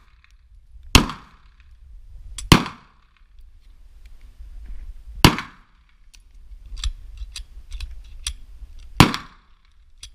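Pistol fired four times in single shots, spaced one to four seconds apart, each shot sharp and loud with a short echoing tail. Fainter clicks come between the last two shots.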